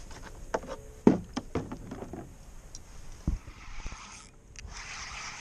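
Knocks and clunks of gear and a paddle being handled against a plastic kayak hull, the loudest about a second in, as the fishing rod is picked up. About three and a half seconds in, a steady hiss takes over.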